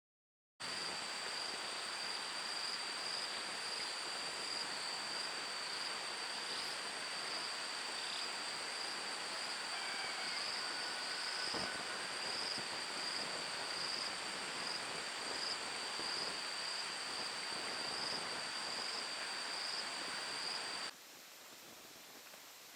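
A steady outdoor chorus of insects with a high, gently pulsing whine over a hiss. Near the end it cuts off suddenly to a quieter hiss.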